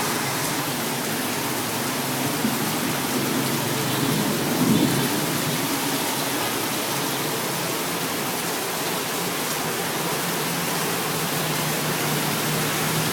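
Steady rain falling, an even hiss, with a low hum underneath that swells briefly about four and a half seconds in.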